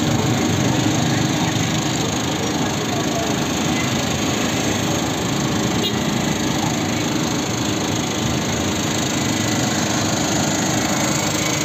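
A motor running steadily, an even mechanical drone with no clear change.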